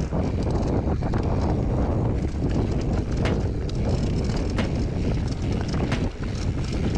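Mountain bike rolling along a dry dirt singletrack: tyre noise and wind on the camera microphone make a steady low rush, with a few sharp clicks and rattles from the bike.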